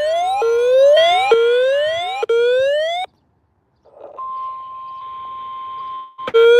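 Electronic siren alarm that rises in pitch and snaps back about once a second, over the steady 1050 Hz NOAA Weather Radio warning tone. Both cut out abruptly about three seconds in. The 1050 Hz tone then returns alone with radio static, and the rising siren starts again near the end.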